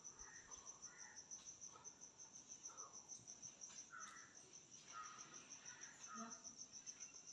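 Faint cricket trilling steadily: a high-pitched, fast and even train of pulses without a break.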